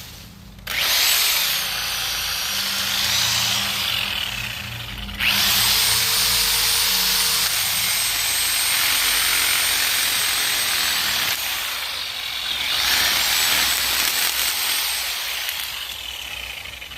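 Sawzall reciprocating saw cutting through tree branches, starting just under a second in and running in long cuts with a high motor whine that shifts in pitch, easing off briefly about two-thirds of the way through.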